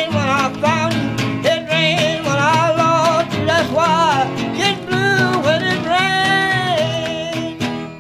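Acoustic blues band playing an instrumental passage: plucked guitar under a lead line of bending, wavering notes. It dies away near the end as the song finishes.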